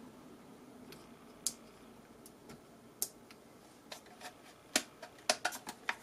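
Light clicks and taps of small plastic parts being handled on the RC truck's chassis, a few isolated ones early, then a quick run of clicks near the end.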